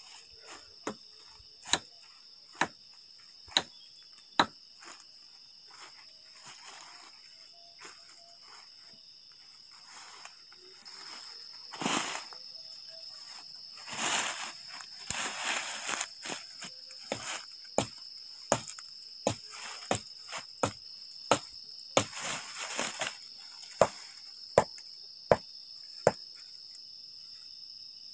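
Crickets trill steadily in a night-time forest, broken by a string of sharp cracks about once a second and a few short bursts of rustling. The camper takes these for something walking outside the tent and the trees cracking.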